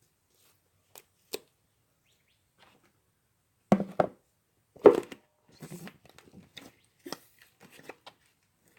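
Slime being handled by hand: a couple of sharp clicks, then two louder pops about a second apart and a run of quieter sticky crackles.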